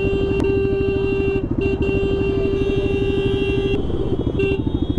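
Bajaj Pulsar RS200's single-cylinder engine running while riding in traffic, with a vehicle horn held on steadily over it. The horn breaks off briefly about a second and a half in and stops near the end after one short toot.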